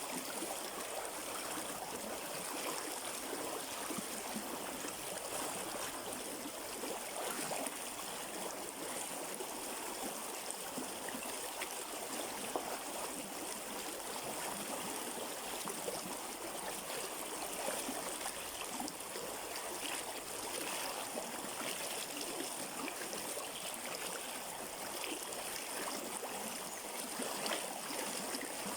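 River water flowing over rocks in a shallow stream, a steady rushing with fine gurgling and splashing.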